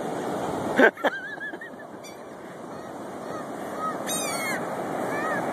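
Seagulls calling: a few short arched cries about a second in and a quick burst of several calls about four seconds in, over steady surf and wind noise. A loud knock just before the first calls is the loudest sound.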